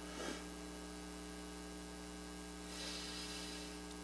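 Steady electrical mains hum with faint background hiss; a faint soft noise swells briefly about three seconds in.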